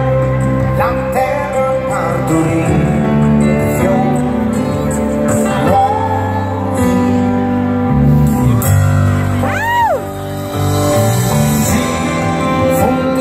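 A live rock band playing with a lead singer, guitars, drums and keyboards, heard from the crowd in a large arena. About ten seconds in, one note swoops up and back down.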